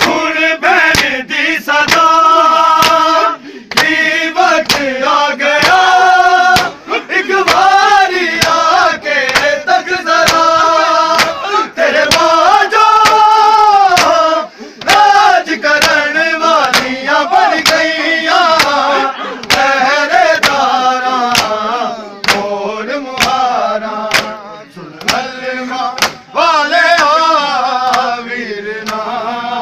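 A male voice loudly chanting a noha, a sung mourning lament in Punjabi, with the men's rhythmic matam: open hands slapping bare chests about twice a second in time with the chant.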